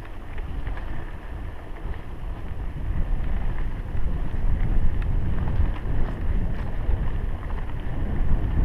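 Wind buffeting a helmet-mounted GoPro while a mountain bike rolls along dirt singletrack, giving a steady low rumble with scattered small clicks and rattles. It grows louder about three seconds in.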